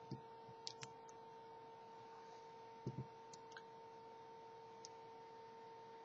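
Small clicks and taps of hard plastic as a Mega Bloks dragon model and its figures are handled, with two louder knocks close together about three seconds in, over a faint steady hum.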